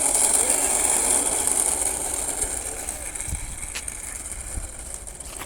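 Arrows Marlin 64mm electric ducted-fan model jet passing low on its landing approach, a high rushing fan hiss that fades steadily over several seconds. A few faint knocks come in the second half.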